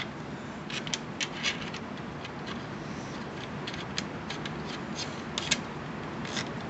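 Light metallic clicks, taps and scrapes, scattered irregularly, as a Citadel PAT 12-gauge pump shotgun is handled and its magazine end cap is fitted back onto the magazine tube. Under them runs a steady hiss of heavy rain.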